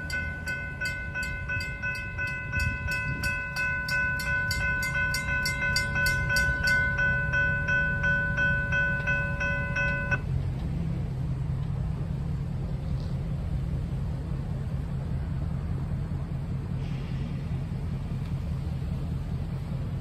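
Railroad crossing warning bell ringing with steady, unbroken tones and quick regular strikes, cutting off abruptly about halfway through. After that, a low steady rumble remains.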